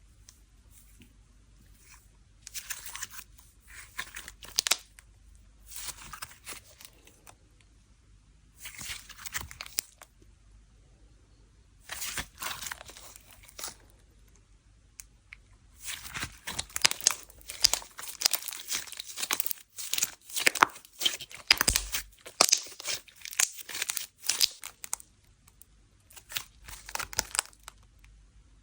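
Crinkly packaging being handled and torn open in short bursts, with a dense run of sharp crackling for several seconds past the middle.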